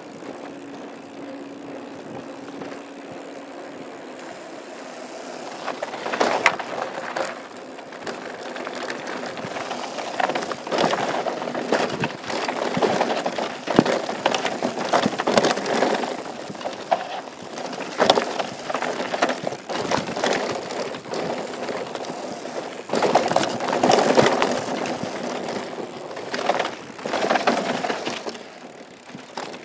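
Mountain bike riding down a rough dirt trail: tyres crunching over dirt and rock, with the chain and frame rattling and knocking over bumps. Quieter for the first few seconds, then a continuous irregular clatter from about six seconds in.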